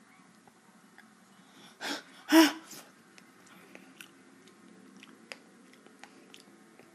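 A person chewing a mouthful of blackberries close to the microphone, with faint wet mouth clicks scattered throughout. About two seconds in comes a sharp breath, then a short voiced grunt, the loudest sound.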